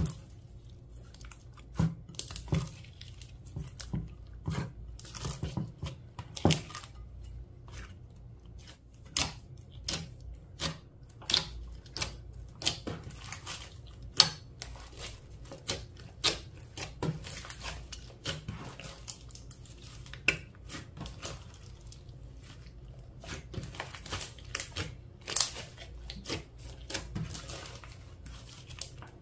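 Slime being stretched, squeezed and folded by hand, making irregular sharp sticky pops and crackles as air pockets burst.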